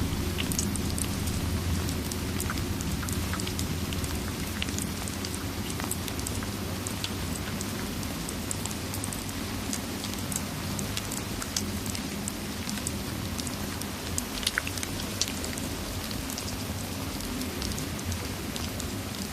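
Steady rain with a low rumble underneath, mixed with the scattered sharp crackles and pops of a fireplace, a few louder pops in the second half.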